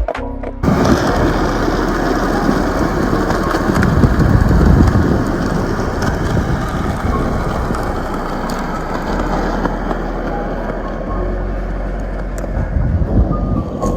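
Skateboard wheels rolling over pavement: a loud, steady rolling noise with a few faint clicks, after music cuts off about half a second in.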